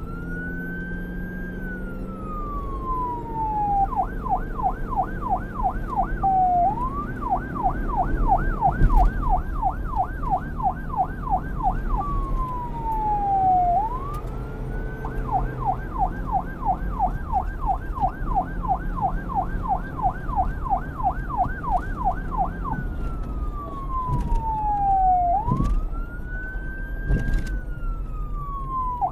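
Police car's electronic siren switching back and forth between a slow wail, which rises and then falls over two or three seconds, and a fast yelp of about four to five sweeps a second. Underneath runs a steady low rumble of vehicle engine and road noise.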